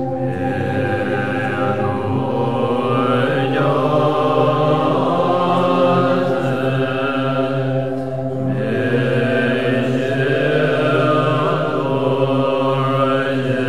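A group of Tibetan Buddhist monks chanting prayers together in unison in steady low voices, with a brief break about eight seconds in.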